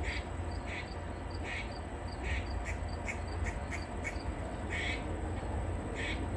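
Grey squirrel barking: a string of short, sharp calls, roughly two a second and unevenly spaced. It is the squirrel's distress call, typically given when a predator is near.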